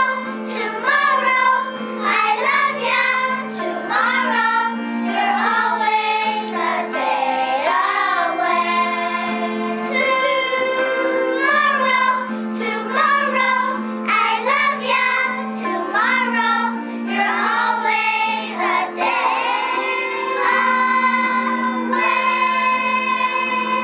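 Children singing a song with a sustained instrumental accompaniment.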